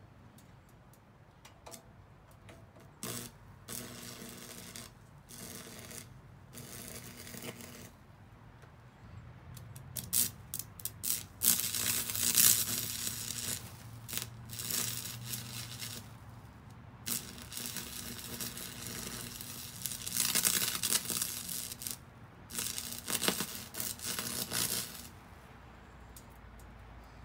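Electric arc crackling from a Campbell Hausfeld 115-volt stick welder, with a low hum under it, in stretches of a few seconds that start and stop as the rod is struck and the arc breaks off. The kit's welding rods are hard to get arcing.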